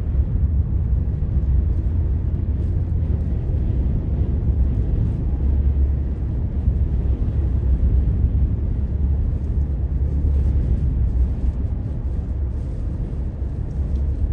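Steady low rumble of a car driving at road speed on a wet road, heard from inside the cabin: engine and tyre noise.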